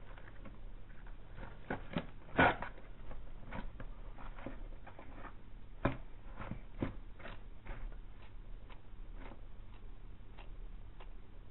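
Argentine black and white tegu feeding: irregular sharp clicks and knocks, the loudest a pair about two and a half seconds in and another near six seconds, then fainter, evenly spaced clicks as it bites and chews its food.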